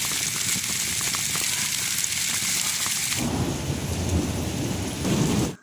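Heavy rain pouring down in a steady, dense hiss; about three seconds in the sound shifts to a deeper, rumbling drumming that continues to the end.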